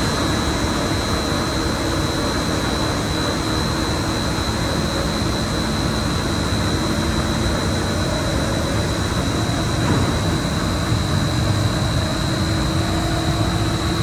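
Cooling tower fan running on a variable frequency drive: a steady rushing noise with a thin high whine over it. This is the remaining noise of the fan with the drive's ramp-up time lengthened to 60 seconds.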